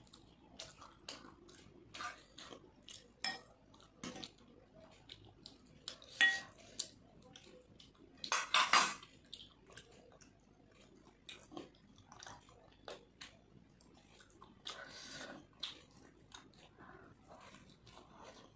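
Eating by hand from a glass bowl and a plate: close chewing and mouth sounds with scattered light clinks of tableware, a few of them ringing briefly. A louder noisy burst comes a little past eight seconds in, and a smaller one near fifteen seconds.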